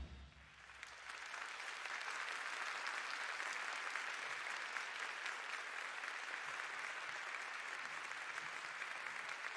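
Large concert audience applauding as a song ends; the clapping swells over the first two seconds, then holds steady.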